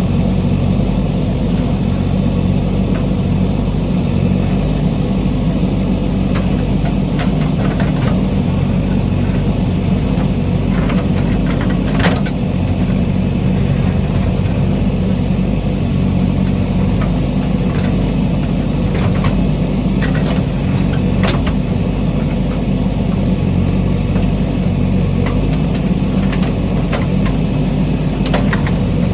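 Backhoe loader's diesel engine running steadily, with a few sharp knocks, the clearest about twelve seconds in and again about twenty-one seconds in.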